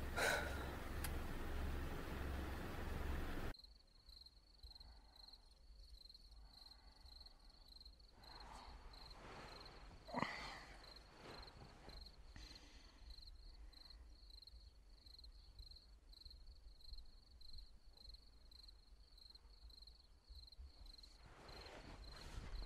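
Faint night ambience in which a cricket chirps steadily, a high pulsing note repeating several times a second. It follows a few seconds of low room hum that cuts off abruptly. About ten seconds in there is one brief, louder soft noise.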